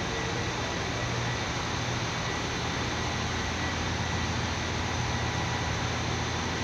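Train pulling slowly into a station platform: a steady hum and hiss, with a thin high tone held throughout.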